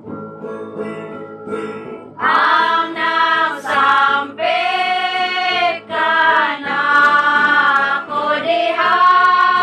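A group of voices singing together with long held notes, starting loudly about two seconds in, over steady acoustic guitar accompaniment.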